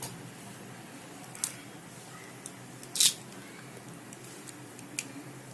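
A few sharp taps, the loudest about three seconds in, with soft wet squishing: a hen's egg cracked against a bowl and broken into a thick flour-and-spice batter.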